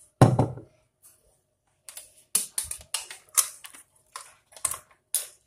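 A single dull knock just after the start, then after a pause a run of irregular light clicks and knocks as the electric blender is set up for blending: its jar, lid and power cord handled.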